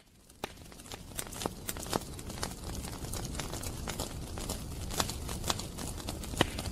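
Non-musical sound effect fading in out of silence at a track's opening: a steady rushing noise with irregular sharp clicks or knocks, a few to the second.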